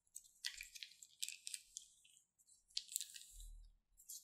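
Faint wet crackling and popping of slime squeezed from a plastic piping bag onto slime in a tray, in short clusters of tiny clicks.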